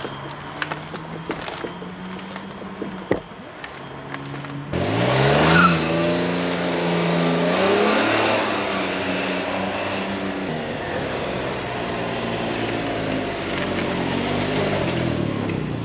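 Can-Am Ryker 900's three-cylinder engine idling, then about five seconds in it gets louder and climbs in pitch twice as the trike accelerates away, and it runs on at speed.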